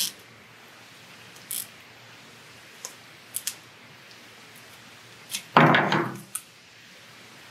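Nylon cable tie being worked tight around silicone tubing, giving a few short sharp clicks spaced over the first few seconds. About five and a half seconds in, a louder half-second clatter as a plastic hand tool is picked up off the table.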